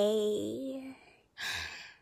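A sung vocal note held with a slight waver fades out in the first second, ending the line of a Japanese song. About a second and a half in comes a short breathy sigh.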